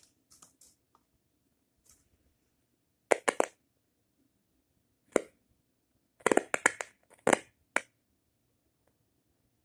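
Short, sharp clicks and knocks in small groups: a quick cluster about three seconds in, a single click about five seconds in, and a denser cluster around six to seven seconds in, with near quiet between.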